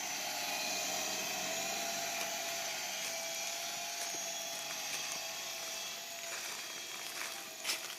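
Small radio-controlled helicopter in flight: a steady motor and rotor whine that wavers slightly in pitch, with one sharp click near the end.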